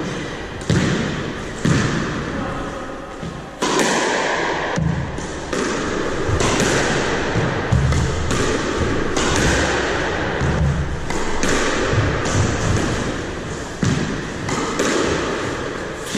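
Squash rally: the ball struck by rackets and smacking off the court walls and floor, about one sharp hit a second, each ringing briefly in the enclosed court. The hits come closer and steadier from about three and a half seconds in.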